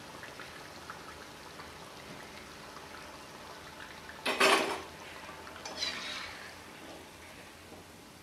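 Oil sizzling steadily in a kadai as fried bondas are lifted out with a slotted steel skimmer. About four seconds in comes a loud metallic clatter as the skimmer meets the steel container, then a lighter clink a second and a half later.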